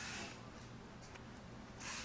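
Faint rustling of an elbow brace's fabric straps being handled and fastened, in two short bursts, one at the start and one near the end.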